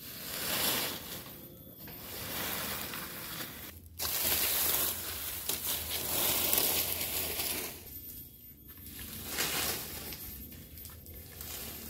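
Dry leaf litter, twigs and cut brush crackling and rustling as they are raked and dragged across the ground with a long pole, in several long swells.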